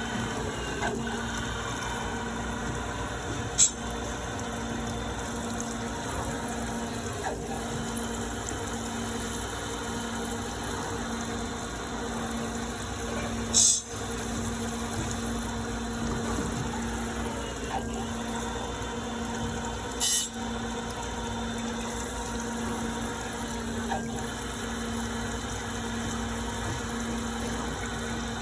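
Akemat U4 saw-blade grinder running its automatic grinding cycle on an 80-tooth carbide saw blade: a steady machine hum with an even hiss, broken by a sharp click three times.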